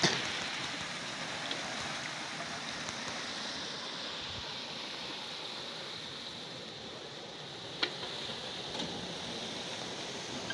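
Steady rush of water pouring from the buckets of a bull-driven Persian wheel into its channel, with one sharp click about eight seconds in.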